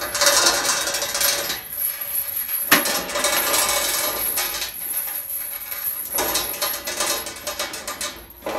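Steel link chain rattling and clinking as it is pulled off a store spool and gathered up by hand, with a sharp metal clank nearly three seconds in.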